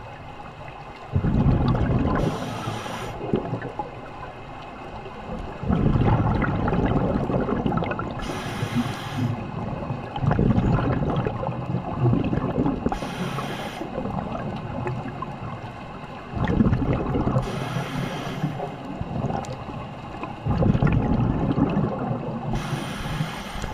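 Scuba diver breathing through a regulator underwater, five breaths in all. Each breath is a loud low rush of exhaled bubbles, with a separate hiss about a second later.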